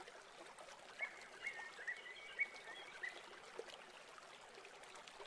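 Faint outdoor nature ambience: a soft hiss with a run of short, high chirps from small animals in the first half.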